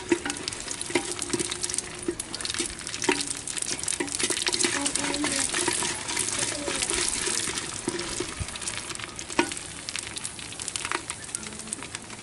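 Whole garlic cloves and whole spices sizzling and crackling in hot mustard oil inside a clay handi, while a wooden stick stirs them, scraping and knocking against the clay pot. The sizzle eases off a little near the end.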